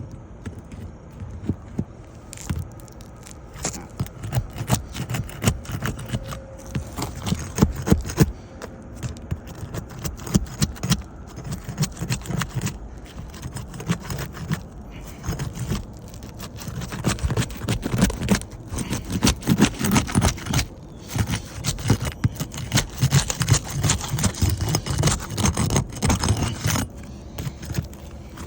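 Asphalt shingles being worked loose by hand: continual irregular scraping, crackling and clicking of the gritty shingle surface, with a low rumble beneath.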